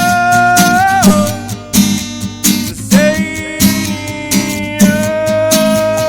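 Live music: guitar strummed to a steady beat under a long held melody note. The note slides up and then falls away about a second in, and comes back about three seconds in.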